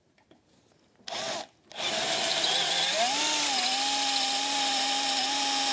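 Electric drill motor briefly blipped about a second in, then run steadily from about two seconds in, drilling out a hole to take a bolt. Its whine rises a little in pitch around three seconds in, then holds steady.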